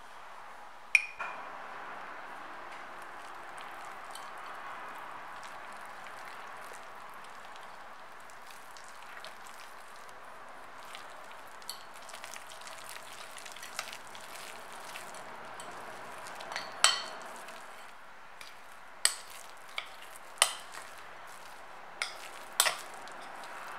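Wire whisk stirring soft, sticky bread dough in a glass bowl, a steady wet stirring noise, with a sharp clink of metal on glass about a second in. Near the end the stirring noise thins, and a metal spoon knocks against the glass bowl several times.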